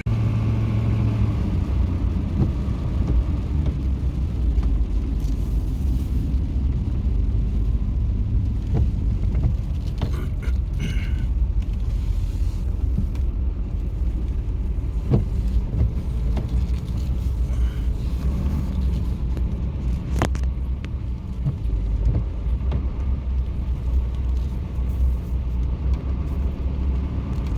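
Vehicle driving: a steady low rumble of engine and road noise, with a few sharp clicks and rattles scattered through it.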